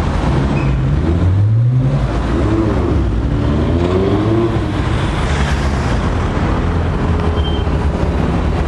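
Sports car engine accelerating, its note climbing about a second in, then rising and falling in pitch for a few seconds over steady street and traffic noise.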